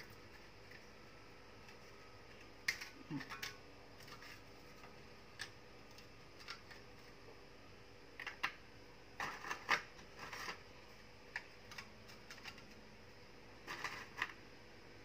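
Graham crackers being snapped by hand and set into a glass baking dish: scattered short, crisp cracks and clicks, in small clusters.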